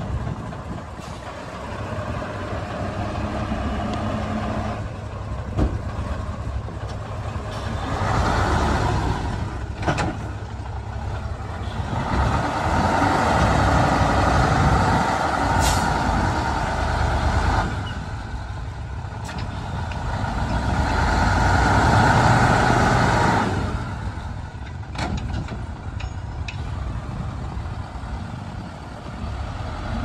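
Heavy diesel engines of a bulldozer and dump trucks at work, rumbling steadily and rising loudly under load three times: around 8 seconds in, from about 12 to 17 seconds, and from about 21 to 23 seconds. A brief hiss comes about 16 seconds in.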